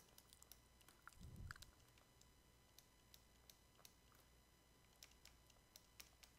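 Near silence with faint, scattered clicks of a stylus on a writing tablet as text is handwritten, and one soft low thump a little over a second in.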